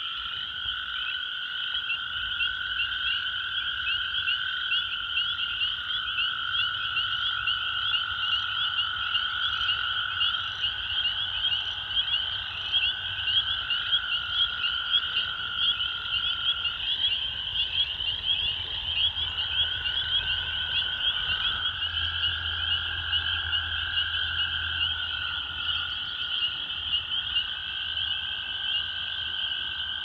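Spring peepers calling in a dense chorus of high, rapid peeps. Underneath, toads give long steady trills, each lasting several seconds, one taking over as another stops.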